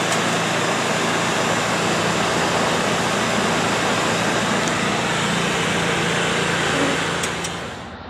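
A machine motor running steadily: a constant hum with an even hiss over it, which drops away near the end.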